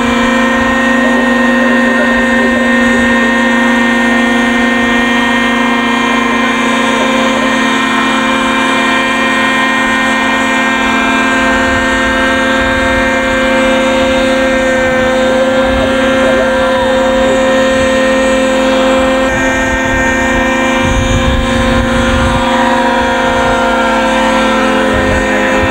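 Small engine of a radio-controlled scale Jet Ranger model helicopter running at a high, steady pitch.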